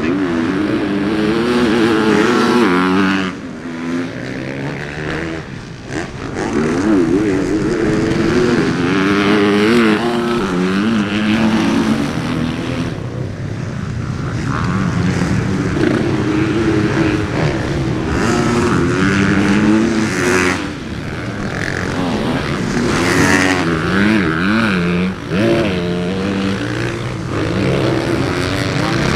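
Motocross bike engine revving hard, its pitch rising and falling over and over as the throttle is opened and closed, with a few short drops where it is shut off.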